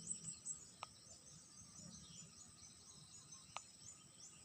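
Faint, distant wild birds calling in short, high, falling chirps that repeat throughout, over a steady high thin tone and low background noise. Two soft clicks, about a second in and near the end.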